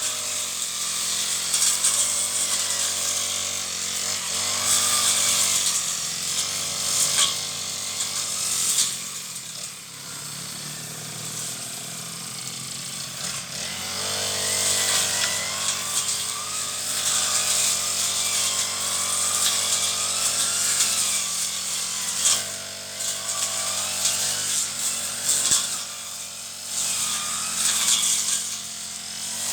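Brush cutter running as it cuts weeds. The engine revs up and down repeatedly with throttle and load, over a steady hiss from the cutting.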